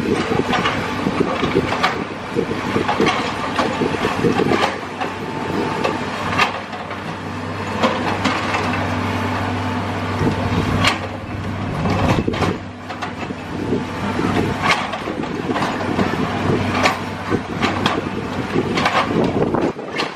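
Hydraulic breaker on a JCB excavator hammering a concrete pile in a fast, continuous pounding, with sharper cracking knocks now and then, over the excavator's diesel engine running steadily.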